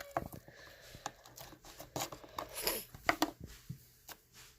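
Foam bead slime being kneaded and stretched by hand: irregular sticky clicks and crackles as the beads and wet slime pop and pull apart, dying away near the end.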